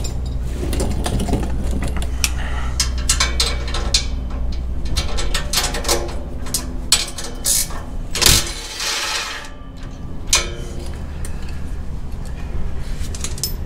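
Hand ratchet clicking in irregular runs as it loosens the nuts on the exhaust midpipe's flange joints, with light metallic clinks from the tools.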